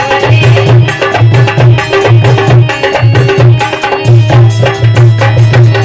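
Instrumental interlude of a Hindi devotional bhajan: hand drums keep a fast, steady rhythm with a deep pulsing bass stroke, under a melodic accompaniment, with no singing.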